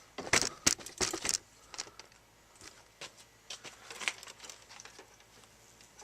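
Handling noises: a few loud rustling scrapes in the first second and a half, then scattered light clicks and taps.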